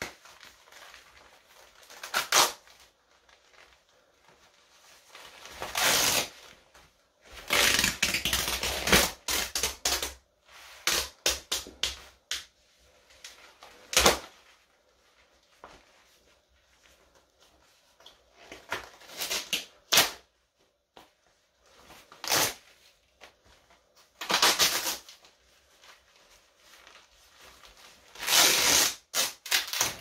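Shiny wet-look leggings fabric being handled and torn: irregular bursts of crinkly rustling and ripping with quiet gaps between, and one sharp snap about halfway through.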